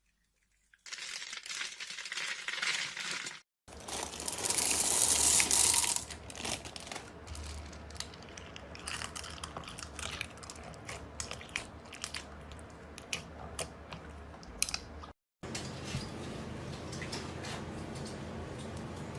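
Slime being stirred and mixed: sticky clicks, crackles and squelchy rustling, louder for a couple of seconds around the fourth second. The sound is broken by short dead-silent cuts.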